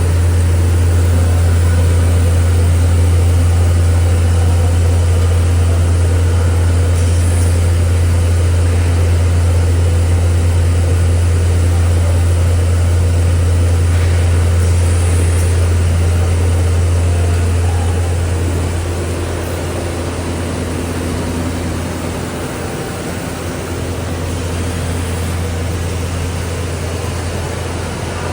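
CNC fabric cutting machine running with a loud, steady low hum that drops in level about two-thirds of the way through.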